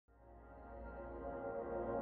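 Ambient music with a low drone and sustained pad tones, fading in from silence and swelling.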